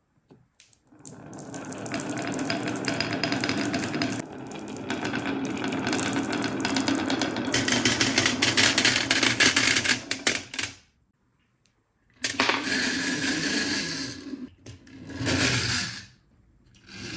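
Marbles rolling down a wavy HABA wooden marble-run slope, a continuous clatter of many clicks as they knock against each other and the wooden curves, stopping about eleven seconds in. Then two shorter bursts of marble rattling follow.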